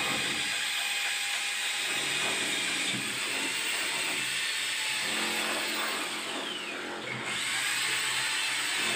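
A power tool running continuously during bathroom ceiling installation, its pitch sagging and then picking back up about six to seven seconds in.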